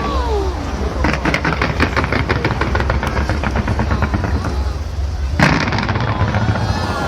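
Fireworks: a rapid run of crackling pops starting about a second in, then one loud bang near the end, with crowd voices.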